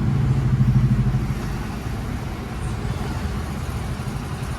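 A motor vehicle's engine running, a low, evenly pulsing throb that is loudest in the first second and a half and then eases off a little.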